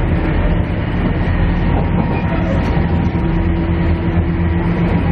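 Cabin running noise of a KiHa E130 diesel railcar under way: the diesel engine's steady drone with a low hum, under a constant rumble of wheels on rail.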